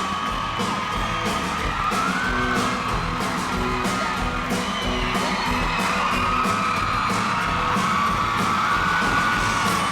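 Concert crowd cheering, whooping and whistling over music.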